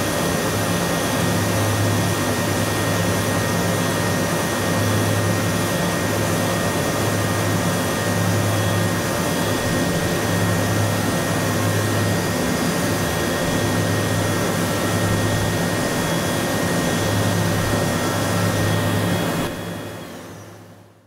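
CNC machining center milling hardened SKD61 tool steel (43 HRC) with a small MOLDINO end mill at 8,000 rpm: a steady whine and hiss over a low hum that swells every two to three seconds. It fades out near the end.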